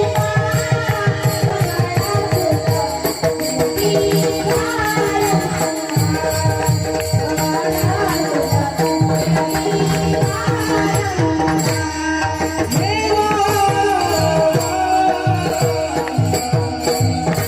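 Varkari kirtan singing: a male voice sings a devotional melody in a high register. He is accompanied by a steady drone, fast hand-drum strokes and even cymbal ticks.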